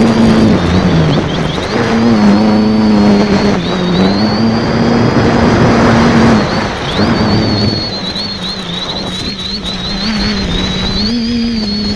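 Multirotor's electric motors and propellers heard from its onboard keychain camera: a low hum and a high whine that rise and fall together as the throttle changes, with wind rushing over the small microphone. The sound is loudest in the middle and eases off in the last few seconds.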